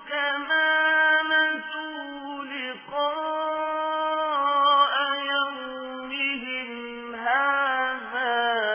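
Melodic chanted Quran recitation: a single voice holding long drawn-out notes with ornamented turns in pitch, breaking off briefly for breath about three seconds in and again after six.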